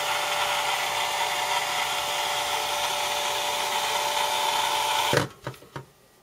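Handheld heat gun's fan running steadily, with a constant whine in its blowing noise, warming the digitizer glue; it is switched off about five seconds in, followed by a few light knocks.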